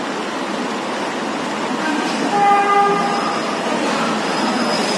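Metro train pulling into a station platform: a steady rush of train noise, with a short pitched tone, about the length of a horn blast, sounding about halfway through.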